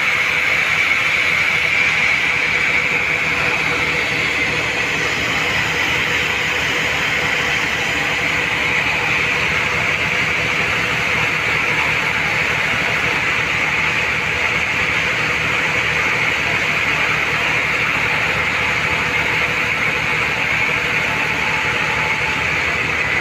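Large sawmill band saw running steadily as its blade rips a mahogany slab lengthwise. The sound is an even, unbroken machine noise with a high whine and a faint steady hum beneath it.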